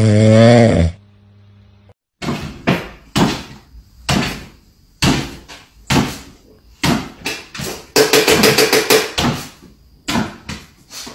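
A dog snoring for about the first second. Then a string of irregular knocks and thumps, roughly two a second with a faster run about eight seconds in, from a small dog bouncing on a wooden kitchen floor.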